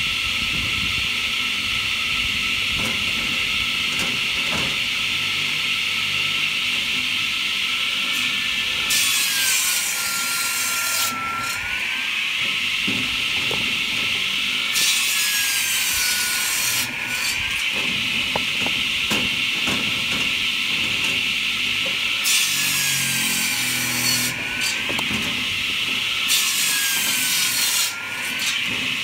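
Electric log saw bench with a 500 mm circular blade, spinning with a steady whine and cutting through firewood logs. There are four rasping cuts in the second half. In each one the blade's pitch drops as it bites into the wood and rises again as the cut finishes.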